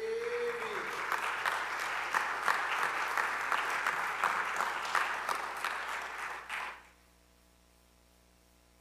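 Church congregation applauding, a dense patter of many hands that lasts about seven seconds and then dies away quickly.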